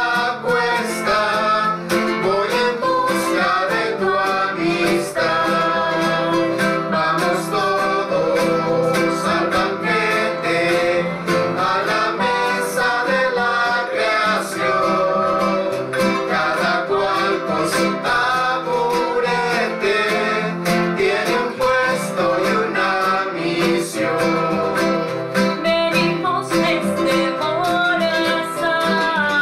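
Voices singing a Spanish-language praise song to strummed acoustic guitars and keyboard.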